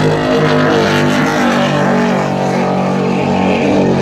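Super Cat offshore racing catamaran's engines running at speed on a pass, a loud, steady drone.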